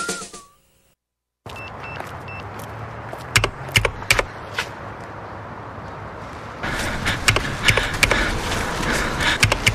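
Music fades out, then about half a second of silence, then a steady noisy background with a few short high beeps and a run of sharp clicks and knocks; the noise gets louder about two-thirds of the way in.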